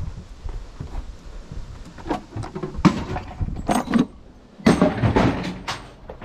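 Drawers being pulled out and handled: a series of knocks, scrapes and rattles, with the loudest knocks in the second half.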